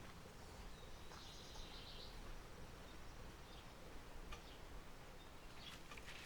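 Quiet outdoor background with a low steady rumble, a short bird trill about a second in and a few faint chirps later.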